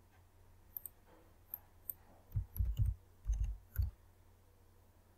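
A few light mouse clicks, then five quick keystrokes on a computer keyboard typing a short word, each with a dull thud.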